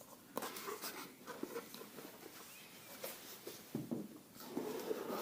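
Cardboard product packaging being handled and opened: a run of light scrapes, rustles and small clicks.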